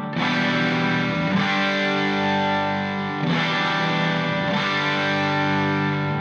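Instrumental rock background music with guitar, playing held chords that change every second or two.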